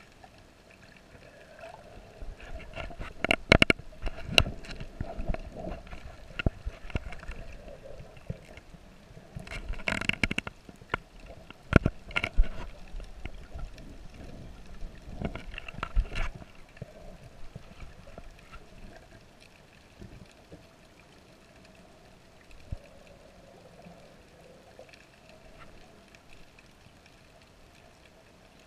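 Underwater sound picked up through a GoPro housing while snorkeling: water sloshing and bubbling with irregular sharp knocks and bursts during the first half, then a quieter stretch of faint steady underwater hum.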